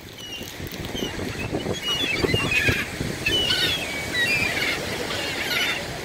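A flock of gulls calling as they squabble over scraps of food, with many short, overlapping squawks that build up from about half a second in.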